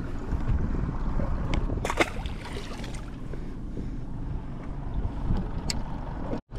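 Wind buffeting the microphone over a steady low rumble aboard a fishing boat, with a few light knocks, the loudest cluster about two seconds in. The sound drops out for an instant near the end.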